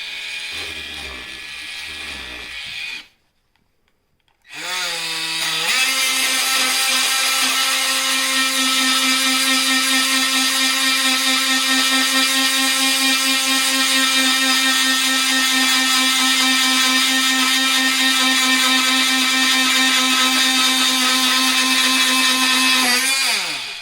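Ryobi 18V cordless oscillating multi-tool buzzing as its blade cuts through pork rib bone. It stops about three seconds in and starts again a second and a half later, rising in pitch to a steady high buzz, then winds down near the end.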